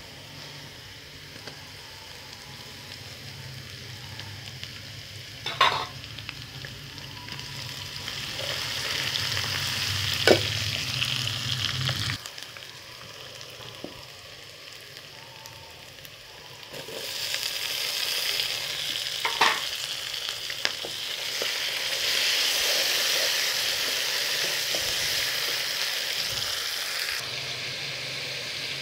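Onions and masala sizzling as they fry in hot oil in a steel pan. The sizzle swells louder about eight seconds in and again from about seventeen seconds, and a metal ladle clinks sharply against the pan three times while stirring.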